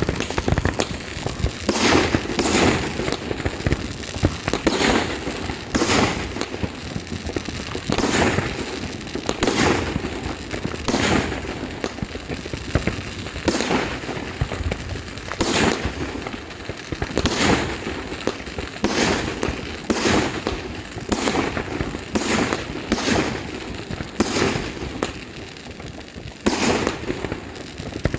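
Fireworks going off without a break: sharp bangs at an irregular pace of about one or two a second, over a continuous crackling.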